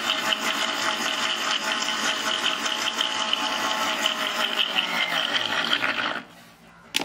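Electric mixer grinder with a stainless-steel base, running at speed as it blends milk, sugar and ice cream into a milkshake in its jar. It is switched off and winds down about six seconds in, with a falling pitch, and a sharp click follows near the end.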